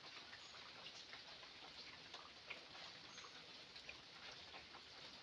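Near silence: faint outdoor background hiss with scattered small ticks.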